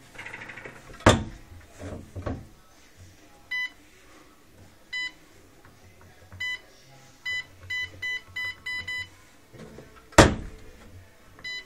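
Small electronic keypad safe: its steel door knocks shut about a second in, then about nine short keypad beeps as a code is entered, quickening toward the end, then a loud thud against the door about ten seconds in.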